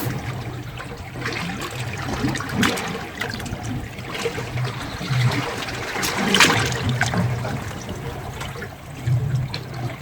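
Seawater sloshing and splashing in irregular surges, the biggest splash about six and a half seconds in.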